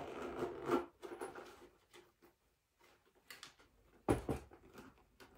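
Handling noise from heavy platform boots: rustling and a few small clicks, then a single sharp thump about four seconds in.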